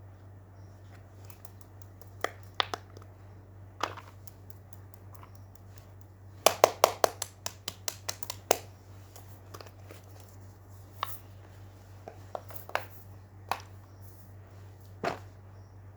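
Small fidget toys being handled, giving scattered sharp clicks and taps, with a quick run of about a dozen clicks in the middle, over a steady low hum.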